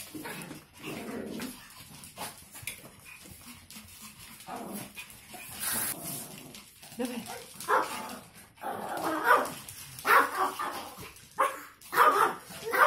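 Small Pomeranian spitz dogs barking and yapping in excited play. The barks come in short sharp bursts, sparse at first and louder and more frequent in the second half.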